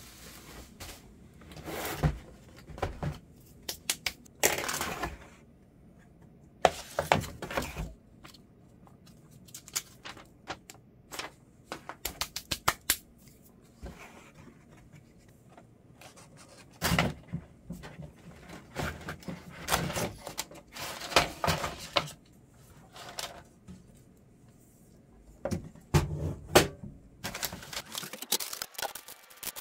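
Flat-pack cardboard box and its packaging being handled and opened: irregular rustling, with scattered sharp clicks, taps and knocks of the box and its parts coming in short bursts.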